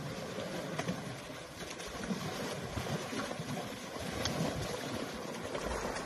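Shallow muddy river water sloshing and splashing as an elephant calf wallows and rolls in it and adult elephants wade around it, with small irregular splashes over the steady rush of the stream.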